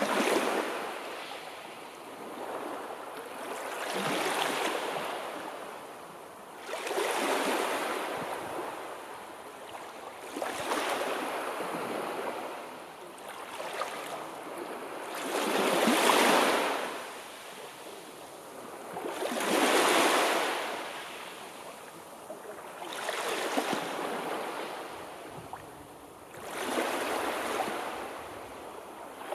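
Sea surf: waves rush in and fall back, one swell of hiss about every three to four seconds.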